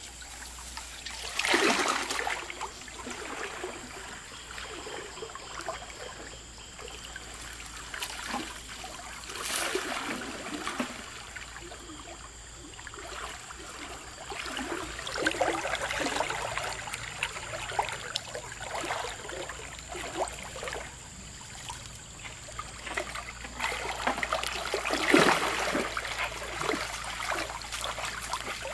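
Water trickling and splashing, with louder splashes about a second and a half in, about ten seconds in and again near the end.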